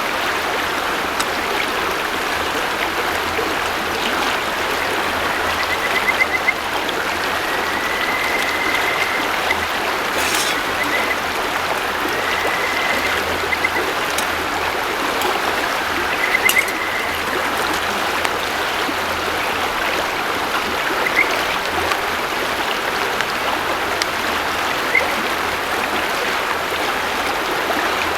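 River water flowing steadily over stones. A few short, high trilling calls and the odd click come through now and then.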